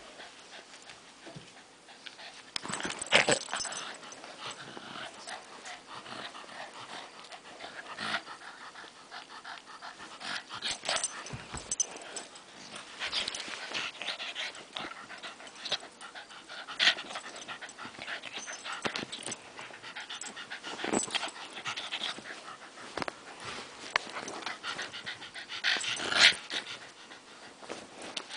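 Spaniel play-fighting with a hand puppet, panting and wheezing as it bites and wrestles it, with irregular sharp scuffling sounds throughout.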